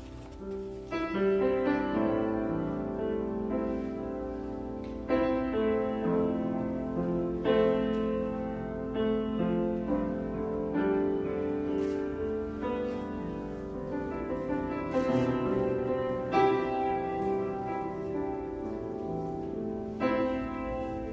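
Slow keyboard music of held chords, with a new chord struck every few seconds.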